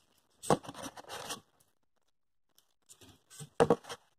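A red plastic propeller being forced onto the end of a thin wooden stick, a tight fit: short bursts of scraping and rasping in two spells, about half a second in and again about three seconds in.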